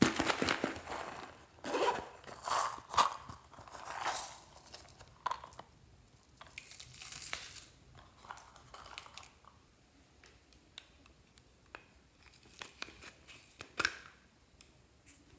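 Glossy slime being worked by hand with items mixed into it: irregular wet squishes, crackles and small clicks, busiest over the first few seconds and again near the end.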